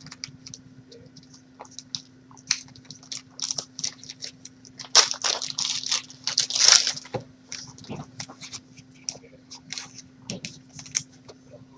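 Trading-card packs and cards being handled: light clicks and rustles of cards being shuffled and sorted, with louder crinkling of a foil pack wrapper about five to seven seconds in.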